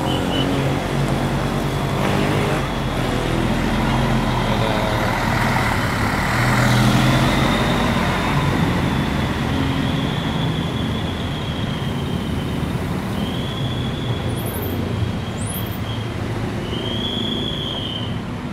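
Diesel engine of a large intercity coach pulling away and driving past, its low drone swelling to its loudest about seven seconds in and then easing as it moves off.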